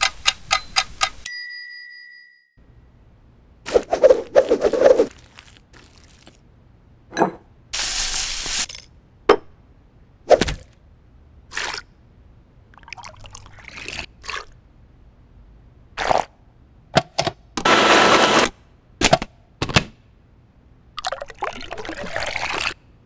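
Kitchen sounds for a milkshake recipe. A quick run of chime-like dings comes first, then knocks and clinks and liquids poured into a glass blender jug. A dense burst of noise a few seconds before the end fits the blender running briefly, and near the end a thick milkshake is poured from the jug into a glass.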